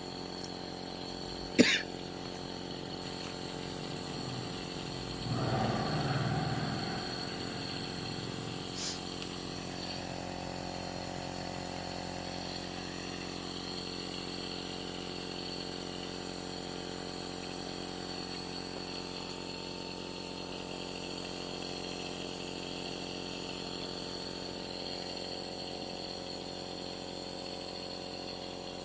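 Compressor nebulizer running: its small pump motor holds a steady hum while it turns the liquid medicine into mist. One sharp click about a second and a half in.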